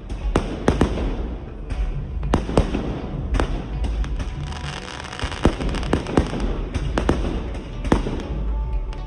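Firecrackers going off: a rapid, irregular string of sharp bangs, about two a second.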